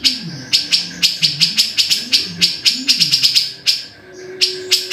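Cucak jenggot (grey-cheeked bulbul) calling in a fast, harsh chatter of short notes, several a second, with a brief break near the end.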